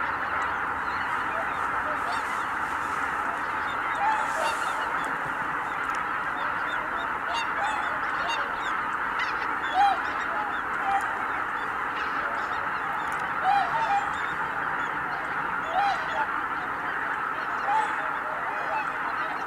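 A large flock of greater white-fronted geese calling in flight: a dense, unbroken chorus of honking, with single louder calls from nearer birds standing out every few seconds.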